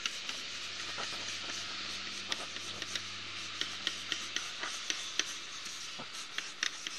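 Colored pencil shading on paper: a steady scratchy rubbing of the lead against the sheet, with scattered light clicks.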